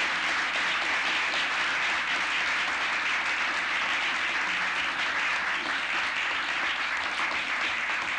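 Audience applauding steadily, a dense patter of many hands clapping that starts to die down near the end.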